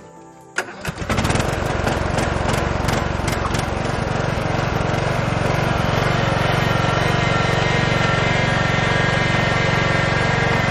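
Riding lawn mower engine cranking and catching about half a second in, then running steadily.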